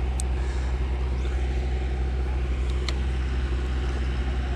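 A steady, low engine hum running without change, with a couple of faint clicks.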